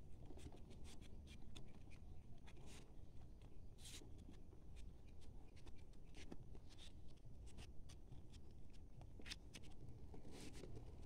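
Faint crinkling and rustling of green leaf strips being rolled and folded by hand into small seedling cups, with scattered light crackles.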